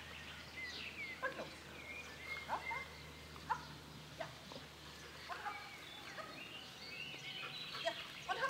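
Scattered short bird chirps and calls over quiet outdoor background.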